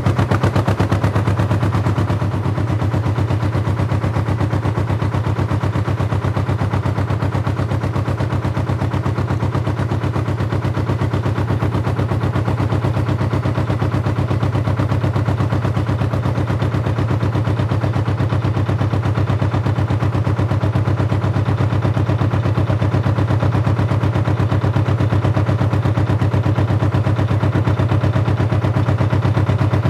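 Canal narrowboat's engine chugging steadily under way, heard on board, as a fast, even run of low beats. It eases slightly about two seconds in, then holds steady.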